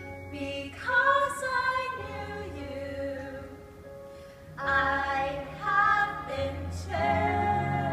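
Broadway-style female singing over a pit orchestra's sustained low accompaniment: two short sung phrases, then a long held note with vibrato near the end.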